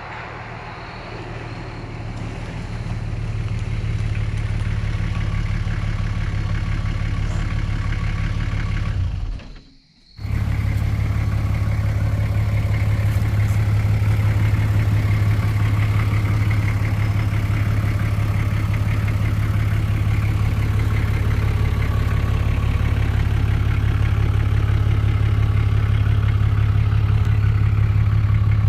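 The diesel engine of a Toyota Land Cruiser HJ60, a straight-six, running steadily. The sound drops out for a moment about ten seconds in, then carries on slightly louder.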